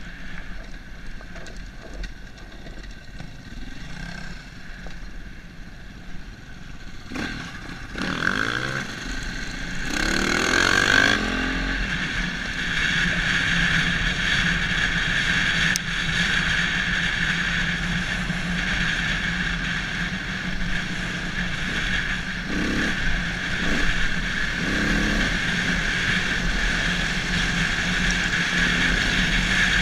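KTM enduro motorcycle's single-cylinder four-stroke engine, running while riding a gravel track. It revs up through rising pitch sweeps about eight to eleven seconds in, then runs louder at a steady higher speed.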